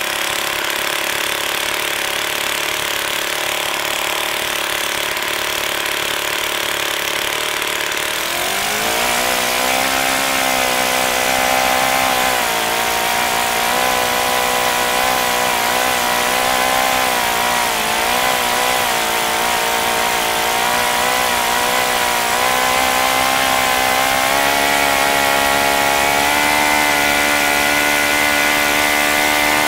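OS FS-61 four-stroke glow model engine running on a test stand, swinging a 13x6 propeller. It runs steadily at low speed, then about eight seconds in the throttle opens and the pitch rises smoothly. It holds there with slight wavering and climbs a little more near the end, reaching about 8,700 rpm.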